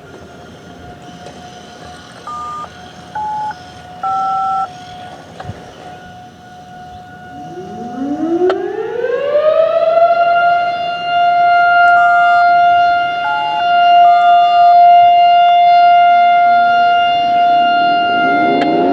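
Outdoor tornado warning sirens sounding in a test. One siren is already holding a steady tone. About seven seconds in, a louder siren winds up, its pitch rising for a couple of seconds to a steady tone that holds. Short stepped beeps of two or three notes from a radio's paging tones sound twice, early on and midway.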